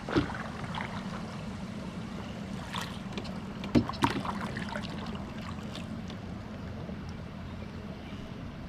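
Wooden canoe paddle strokes through still, lily-pad-covered water: a few short knocks and splashes, the loudest pair about four seconds in, over a steady soft hiss of open-air background.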